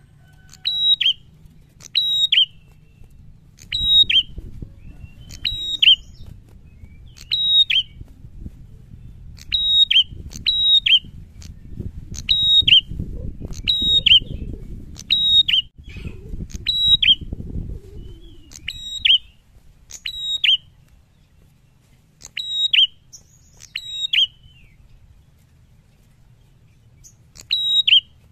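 Prenjak calling repeatedly: short, sharp high notes, each dropping in pitch, about one a second, with longer pauses near the end. A low background rumble runs under the middle stretch.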